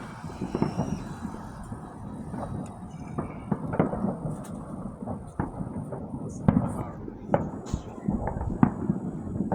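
Fireworks and firecrackers going off: a run of sharp, irregular pops and bangs, the loudest near the middle and toward the end.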